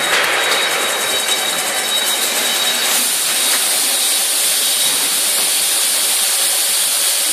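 Vertical baling machine for sugar packs running: a loud, steady mechanical hiss and whir, with a higher hiss joining about three seconds in.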